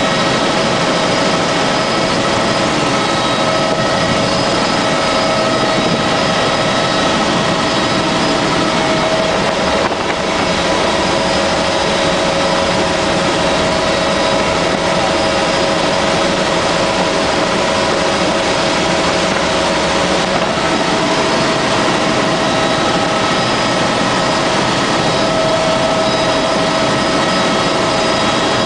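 Helicopter in flight heard from inside its cabin: its engine and rotor make a steady, loud noise with several steady whining tones held through it.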